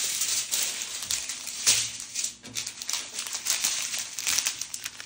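Small plastic bags of diamond-painting drills crinkling and rustling as they are handled, with irregular crackles.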